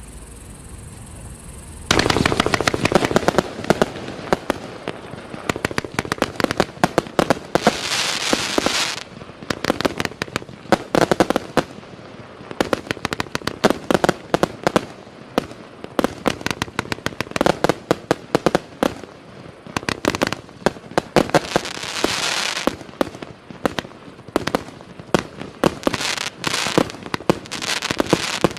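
A 186-shot mixed-calibre firework cake firing: after about two seconds of quiet, a rapid, unbroken string of launch thumps and bursts starts, with thicker stretches of crackle around eight seconds and again around twenty-two seconds.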